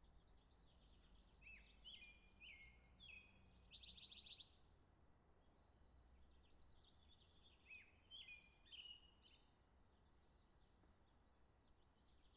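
Faint birdsong: a songbird's chirping notes and buzzy trills, in two livelier phrases about three to four seconds in and again around eight to nine seconds in, over a faint low rumble.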